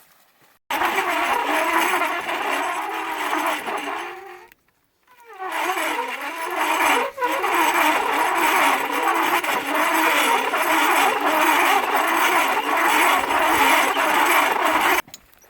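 Small engine running loudly with a wavering pitch. It breaks off for about a second around four and a half seconds in, then starts again and runs until it stops abruptly near the end.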